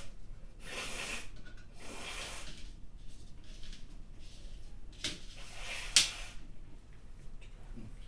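A woman breathing in sharply a few times as a sneeze builds, then one sudden, forceful spray sneeze about six seconds in, the loudest sound.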